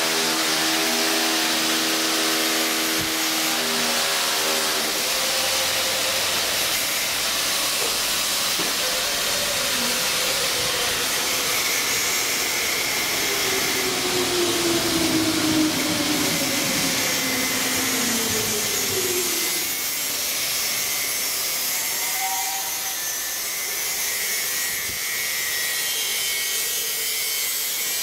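Metro station noise: a steady hiss throughout, with a humming drone at the start that stops about four seconds in, and a whine that falls slowly in pitch over several seconds near the middle.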